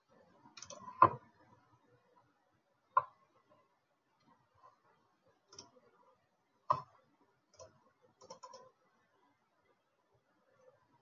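Scattered clicks of a computer mouse, about half a dozen single clicks spread over several seconds, the loudest about a second in.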